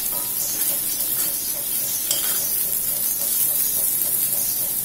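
Sliced bitter gourd with fried onions and dried chillies sizzling in oil in a black iron karahi, stirred and scraped with a metal spatula a few times a second over a steady sizzle.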